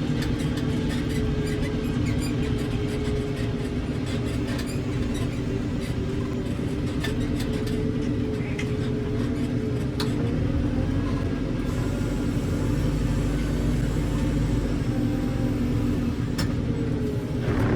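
Heavy diesel engine running steadily, its pitch drifting slightly up and down, with a deep rumble and occasional sharp knocks.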